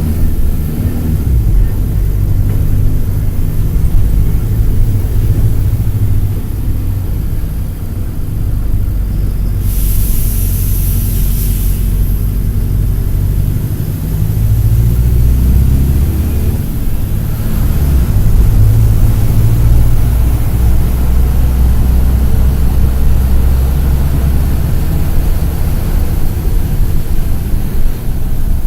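Mercedes-Benz OF-1722M bus's OM-924 LA four-cylinder turbo-diesel running under way, heard from inside the bus; its note drops and rises several times with throttle and gear changes. A short burst of air hiss comes about ten seconds in.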